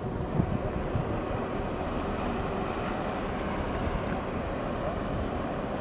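Steady low drone of the cruise ferry Silja Serenade passing close by, its engines and hull noise, mixed with wind on the microphone.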